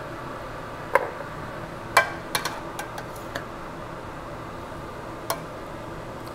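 Metal tongs clinking against a stainless steel pot while boiled chicken is pulled apart: a handful of sharp, irregular clicks, bunched together between two and three and a half seconds in, over a steady background hiss.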